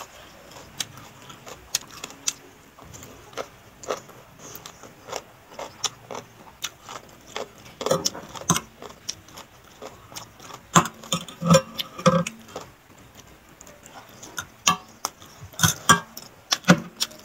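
Close-miked chewing of papaya salad and raw vegetables: irregular crunches and wet mouth clicks, with clusters of louder crunches about halfway through and near the end.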